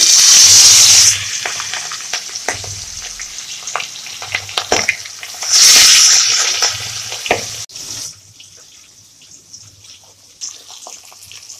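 Pieces of turmeric-coated rohu fish going into hot oil in a kadai, each meeting the oil with a loud burst of sizzling, once at the start and again about six seconds in, then frying with a steady sizzle and crackling pops that die down near the end.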